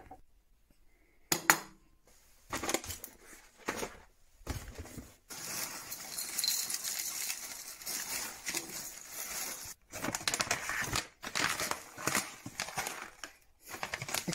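A ceramic bowl clinks sharply once, then dry flake cereal pours out of a crinkling plastic bag into the bowl, a dense rattle with a few short breaks from about five seconds in.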